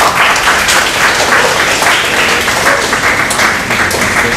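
Audience applauding, a dense, even clapping.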